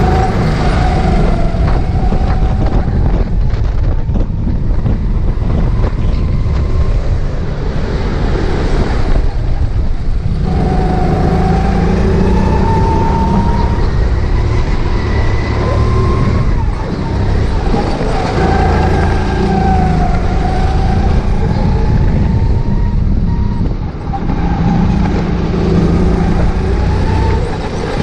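Go-kart running at speed around a track, heard from on board: its motor pitch rises and falls through the turns over a loud, steady low rumble of wind and tyre noise.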